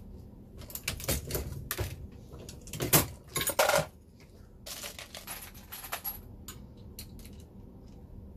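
Dillon Square Deal progressive reloading press being worked by hand, with brass cartridge cases clinking and clattering in quick runs of metallic clicks. The loudest clatter comes about three to four seconds in, and only a few scattered ticks follow.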